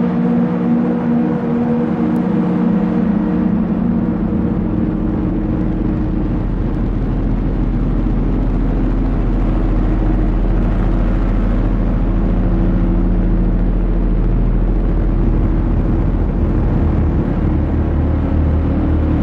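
Soma Labs Lyra-8 analog drone synthesizer sounding a dense, sustained drone of layered steady tones. A deep low note joins about four seconds in, and the low tones shift near the end.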